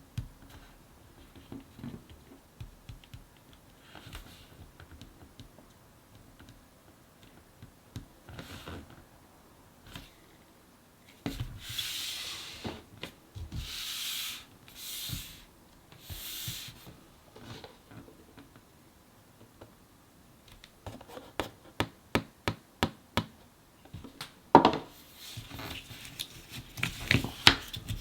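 Cardboard jigsaw puzzle pieces being handled on a table: scattered soft taps, then several rubbing, sliding swishes in the middle, then a quick run of clicks and taps as pieces are set down and pressed into place, one knock louder than the rest.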